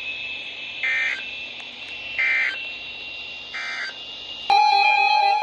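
Three short bursts of EAS/SAME digital data tones, about a second and a half apart: the end-of-message (EOM) signal that closes the warning. Near the end, music starts abruptly.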